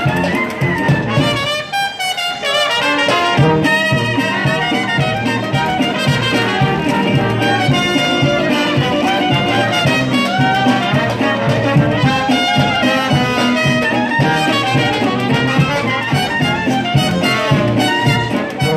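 Traditional New Orleans jazz band playing live: brass horns and clarinet weave the melody over a steady tuba bass and strummed banjo and guitar. The tuba and low rhythm drop out briefly about two seconds in, then return on the beat.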